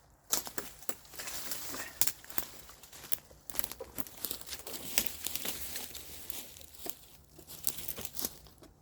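Dry leaves and brushy stems rustling and crackling as they are handled and pulled, with many small irregular snaps and crunches.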